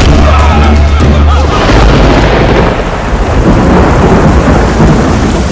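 Thunder rumbling over the steady hiss of heavy rain; the deep rumble is loudest for about the first second and a half, then the rain hiss carries on.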